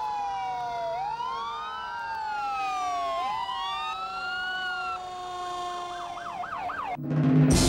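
Several emergency vehicle sirens wailing at once, their rising and falling sweeps overlapping at different pitches, one switching to a fast yelp near the end. The sirens cut off suddenly and music starts just before the end.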